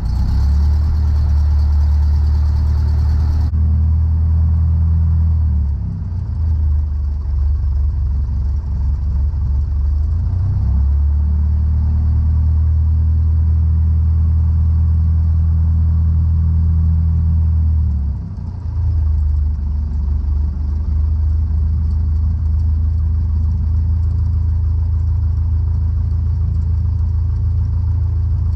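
Cessna 152's four-cylinder Lycoming engine running at low power on the ground, heard from the cockpit. Its note dips and comes back a few times as the aircraft stops for a brake check and then taxis.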